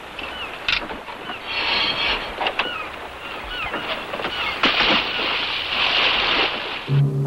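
Sea water splashing and churning as a scuba diver drops over a boat's side, loudest in a long surge of splash about two-thirds of the way in. Short high chirps recur over the wash.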